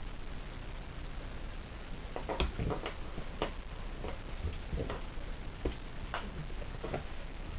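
A series of about ten irregular sharp clicks and taps, spread over four or five seconds, with a short ring after each.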